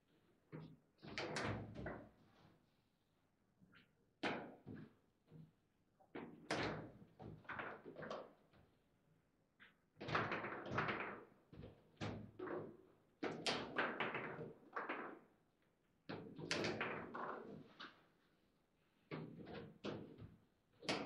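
Foosball table in play: clusters of sharp knocks and thuds as the hard ball is struck by the plastic figures and rebounds off the table, with brief pauses between bursts.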